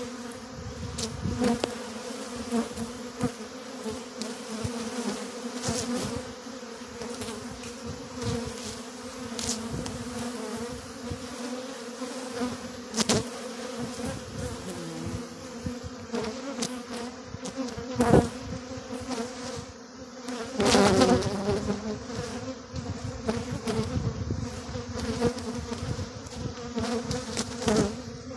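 Honeybees buzzing around a row of hives: a steady hum from heavy flight traffic at the entrances of strong colonies. Single bees pass close by now and then, the loudest about two-thirds of the way through, with a sliding pitch.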